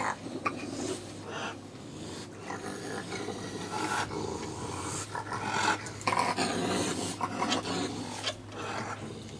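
Several raccoons growling at one another as they feed and jostle over food, with irregular scuffling.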